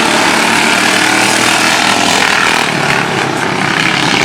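Engines of several racing lawn mowers running loud together, a steady dense drone of small engines.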